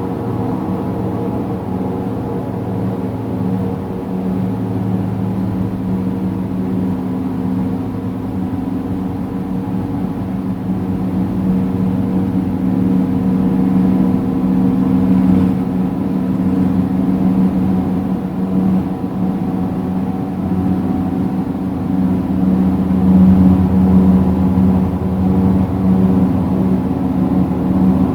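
Steady, unbroken low droning hum made of several held tones, growing a little louder in the second half. The recordist likens it to a motor glider or a lawn mower and suspects high-voltage lines or the solar storm behind it.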